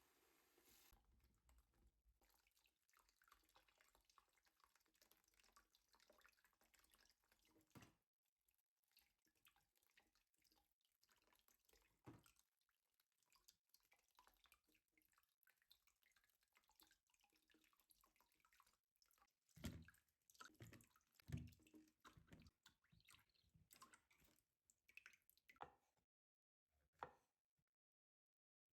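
Faint kitchen sounds: water dripping, with scattered light clicks and knocks and a few heavier thuds about twenty seconds in.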